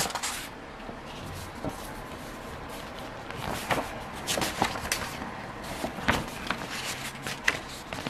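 Paper pages of a printed instruction booklet being handled and turned, with rustling and a scatter of short crackles that come mostly in the second half.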